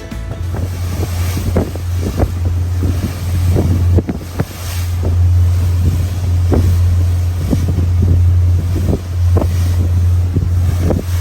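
Ocean Alexander 48 trawler under way: its diesel engines give a steady low drone, with irregular gusts of wind buffeting the microphone and water rushing past.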